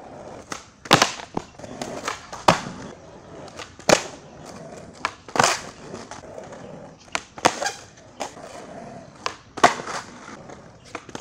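Skateboard doing flatground tricks on stone paving: sharp tail pops and landing clacks every second or so, with wheels rolling between them. The tricks are fakie bigspins and a fakie frontside pop shove-it.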